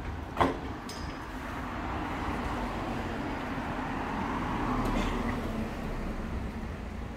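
A Mercedes-Benz saloon car drives past close by, its tyre and engine noise swelling to a peak about halfway through and then fading. A single sharp knock sounds about half a second in.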